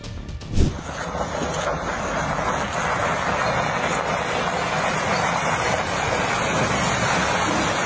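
A sharp thump about half a second in, then the steady rushing road and wind noise of a moving vehicle.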